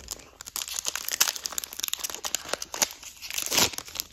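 Foil wrapper of a Pokémon card booster pack crinkling and tearing as it is opened, a dense run of crackles with a louder burst about three and a half seconds in.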